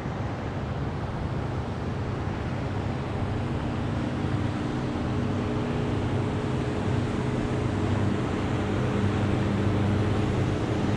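A passing motorboat's engine drone, coming in about three seconds in and growing louder as the boat approaches, over a steady rush of water and wind.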